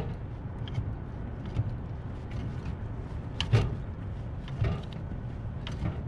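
Two pipe wrenches turning a threaded gas pipe nipple into a furnace gas valve: a few scattered metallic clicks and knocks over a steady low rumble.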